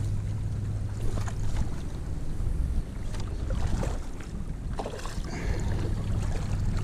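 A motor running with a steady low hum, with scattered short knocks and splashy rustles over it.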